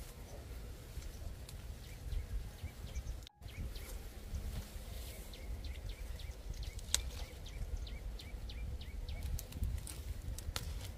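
Small birds chirping over and over in short falling notes above a steady low rumble, with a single sharp snap about seven seconds in as an apple is grasped and pulled from the branch. The sound cuts out for a moment about three seconds in.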